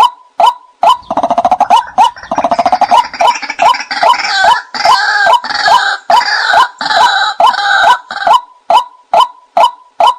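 White-breasted waterhen calls played as a decoy: a steady run of sharp "kwak" notes, about two to three a second, joined from about a second in until near the end by a louder, harsher rapid chattering chorus.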